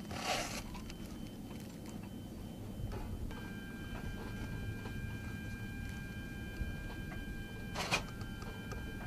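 Diesel engines of parked light armored vehicles idling with a steady low rumble. A short hiss comes right at the start and another near the end, and a steady high-pitched whine joins about three seconds in.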